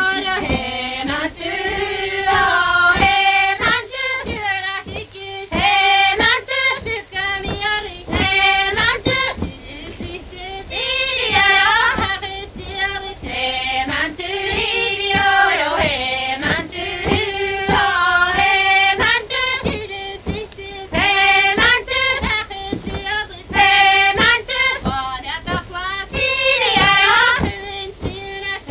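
Music with a high singing voice carrying a melody.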